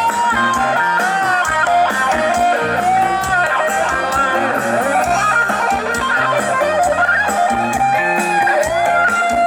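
Band music led by guitar, playing a melody with bending, gliding notes over a steady beat.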